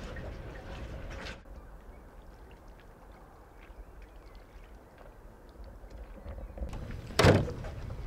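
Faint water lapping with small ticks around a moored wooden rowboat on calm water. Near the end, a single loud, sudden thump.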